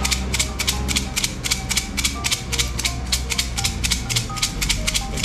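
Numbered fortune sticks (kau cim) clattering in a cylinder being shaken fast and steadily, about six or seven clacks a second, to work one stick out for a fortune reading.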